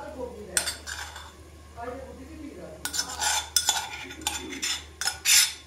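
Stainless-steel cup being tapped and scraped by hand to empty mashed chickpeas onto a plate: a string of sharp metallic clinks and knocks, coming thicker in the second half with the loudest near the end.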